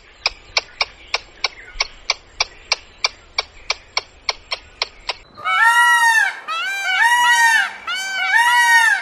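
Eurasian red squirrel making sharp clicks, about three a second. About five seconds in, a peacock takes over with a series of loud, honking calls that rise and fall, each about half a second long.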